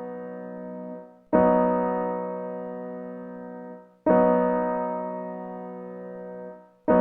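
Piano chords, each struck, held while it fades, and released. A held chord stops about a second in, new chords are struck about a second and four seconds in, and another comes right at the end. These are chords played to demonstrate major and minor chord quality.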